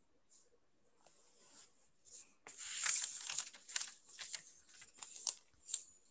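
Close rustling and crinkling handling noise, a quick run of scratchy crackles that grows louder about two and a half seconds in and stops just before the end.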